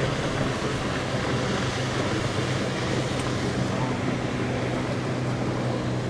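A motor running steadily with a constant low hum, under an even rush of wind and water noise.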